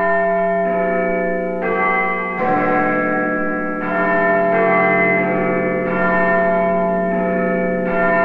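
Synthesiser intro music: bell-like chiming chords that change every second or so over a steady held low note.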